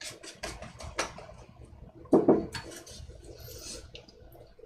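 Ink brush clinking against a ceramic palette dish: a run of light clicks, then one louder knock about two seconds in.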